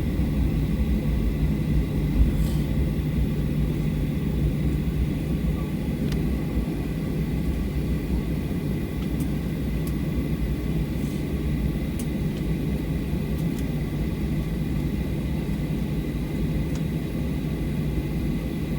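Cabin noise of a Boeing 737-800 rolling on the ground just after landing: a steady low rumble from its CFM56 engines and the airframe, with a faint high whine and a few light clicks.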